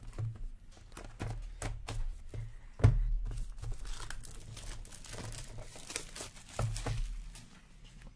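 Plastic shrink-wrap being torn and peeled off a trading-card box by hand, crinkling and crackling, with one sharp knock a little under three seconds in, the loudest moment.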